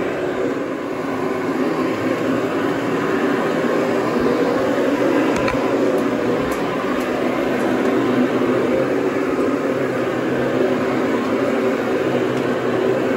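A cleaning machine's motor running steadily, an even drone with no change in speed.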